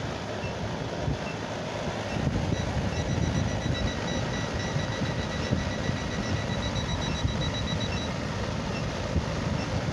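A rapid series of short high-pitched electronic beeps for several seconds, starting a couple of seconds in, from a Klein Tools CL380 clamp meter, over a steady low rumble.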